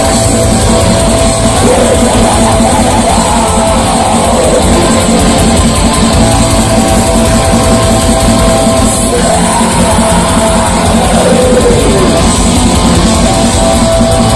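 Black metal band playing live, loud and without a break: distorted electric guitars, bass guitar and a drum kit.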